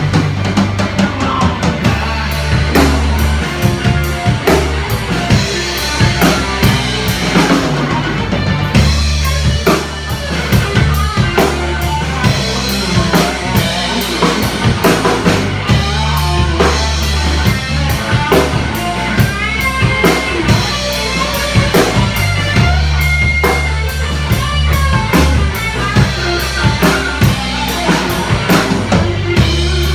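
Live rock band jamming: a drum kit keeping a steady beat with kick drum and cymbals, electric bass, and electric guitar playing over it.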